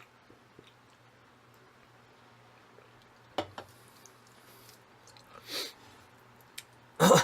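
Jjajang ramen noodles being chewed with the mouth close to the microphone: faint chewing with a few sharp mouth clicks about three and a half seconds in, and a short louder burst near the end.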